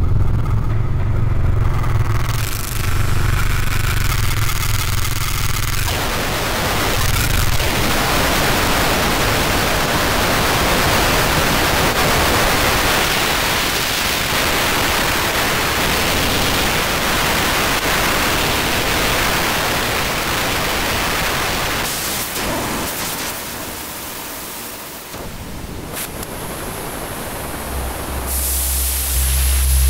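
Experimental electronic noise music: a low rumbling drone for the first few seconds gives way to a dense wash of static-like hiss, which thins out past the middle before a deep bass tone and a high hiss come in near the end.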